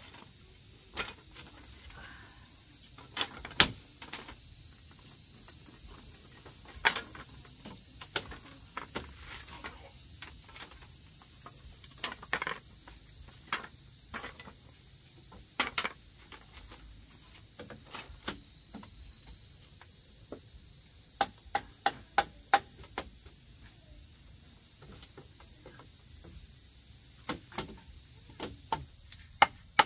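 Insects droning at one steady high pitch throughout, over scattered sharp knocks and taps. A quick run of about five knocks comes a little over two-thirds of the way in.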